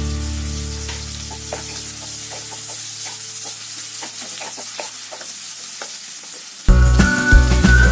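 Sliced onions and dried red chillies sizzling in hot oil in a non-stick wok, stirred with a wooden spatula that scrapes and taps against the pan. A held musical chord fades out over the first few seconds, and loud background music cuts in near the end.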